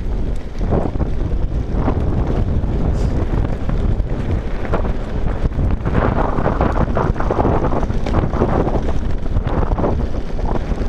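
Wind rushing over the microphone with the rumble and rattle of mountain bike tyres rolling fast down a loose gravel trail. The clatter gets denser from about six seconds in.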